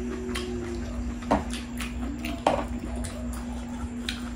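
Close-up eating sounds: soft chewing and mouth clicks, with metal tongs knocking twice against the pan. A steady low hum runs underneath.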